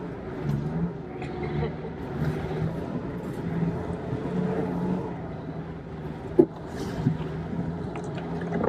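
Sherp amphibious ATV's diesel engine running steadily, heard from inside its cab, with two sharp knocks about six and seven seconds in as the vehicle rides over rough ice.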